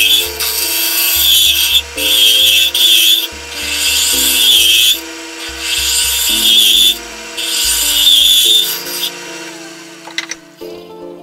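A steel turning tool cutting the face of a wooden lid spinning on a wood lathe, a harsh scraping hiss in repeated passes of about a second with short breaks as the tool lifts off. The cutting stops about nine seconds in, followed by a single click. Soft background music plays underneath.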